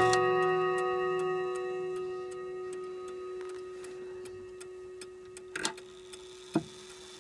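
Longcase clock's chime rods: a struck note rings on and slowly fades over several seconds, with the pendulum clock ticking steadily underneath. Two sharper mechanical clicks come near the end.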